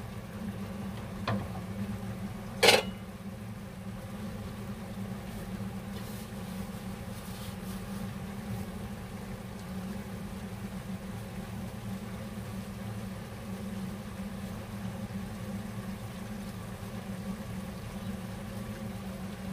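Steady low mechanical hum, with a light click just over a second in and a sharp knock a little later.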